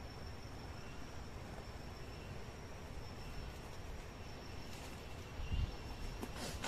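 Jungle insects trilling steadily in a continuous high tone over a low background rumble. Near the end come rustling footsteps in leaf litter on the forest floor.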